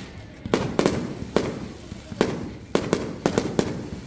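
Fireworks bursting: an irregular series of about nine sharp bangs, some in quick succession, each trailing off in a rumbling echo.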